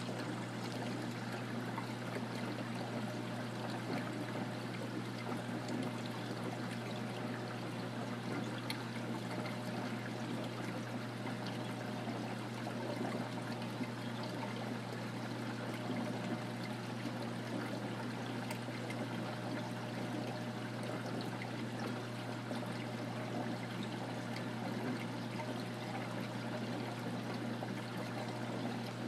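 Reef aquarium water circulating and trickling steadily, over a steady low hum.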